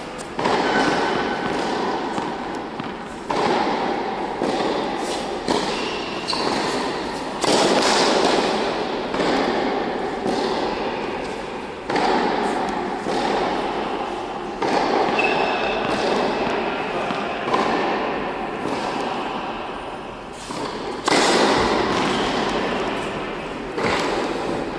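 Tennis balls struck with a racket and bounced on an indoor hard court: sharp hits every two to three seconds, each followed by a long echo.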